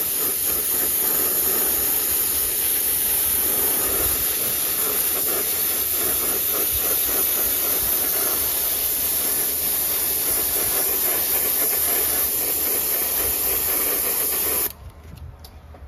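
Airbrush spraying white paint onto metal spinner blades as a base coat, a steady hiss that cuts off abruptly near the end.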